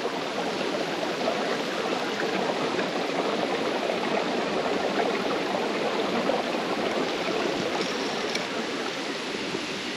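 Water running steadily through a small ditch, an even, continuous rush.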